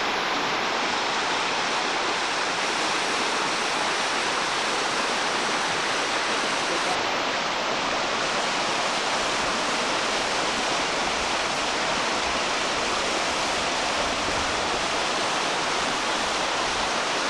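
Shallow river rushing and splashing over rocks: a steady, even rush of water.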